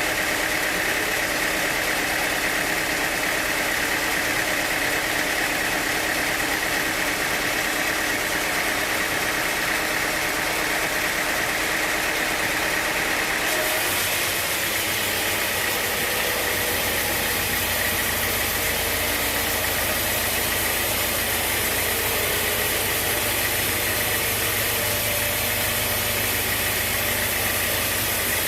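Sawmill machinery running steadily, a constant mechanical drone with hiss. About halfway through the sound changes: a low hum sets in and the high hiss grows stronger.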